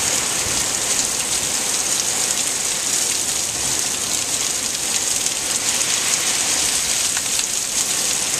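Heavy rain pouring down on leaves and pavement: a loud, steady, dense hiss with no let-up.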